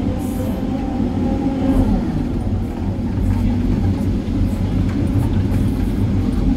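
Hydraulic excavator's diesel engine and hydraulic pumps running steadily under load while the boom and bucket are worked, heard from inside the operator's cab. A faint whine changes pitch in the first couple of seconds as the hydraulics take the load.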